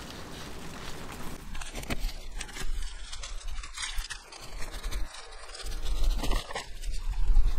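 Potting soil being handled around a chili seedling in its pot, with irregular scrapes and crunches over a low rumble that grows stronger in the second half.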